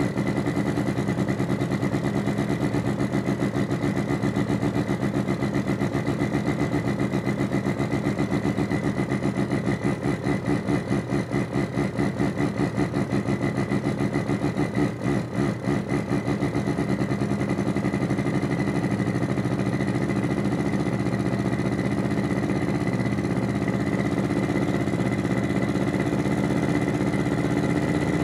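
Artificial engine sound from two function generators sweeping through a mini amplifier and loudspeaker: a rapid low pulsing like an idling motor, running rough, with a thin steady high whistle beneath it. From about 16 s on the pulsing evens out as the generator knobs are turned.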